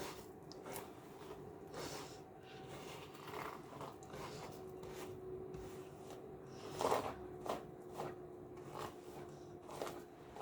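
Faint, irregular rustles and light taps of small objects being handled, over a low steady hum; the loudest tap comes about seven seconds in.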